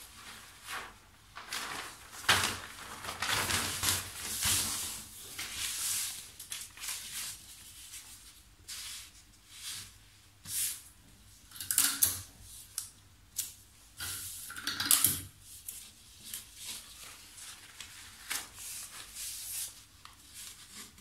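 Sheets of pattern paper rustling and crinkling as they are slid and smoothed by hand over a table, in irregular bursts with a few louder, sharper crackles.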